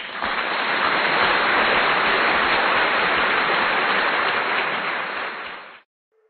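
Steady, even rushing noise that starts abruptly and fades out near the end.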